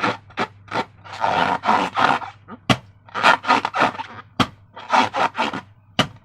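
Slime being squeezed and worked by hand: a quick series of short wet squishing and rubbing sounds, two or three a second, with a few sharp clicks among them.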